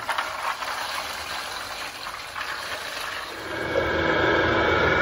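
Raw cashews pouring out of a metal bowl onto a perforated metal tray, a dry rattling hiss. About three seconds in, a steady machine motor starts to dominate, running with a level hum and whine.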